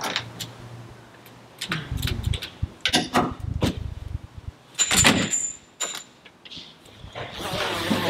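Bimini canopy being collapsed: its aluminium frame poles knocking and sliding against each other and their fittings clicking, in a string of separate clatters, the loudest about five seconds in with a short high squeak. The canvas cover rustles as it is folded down near the end.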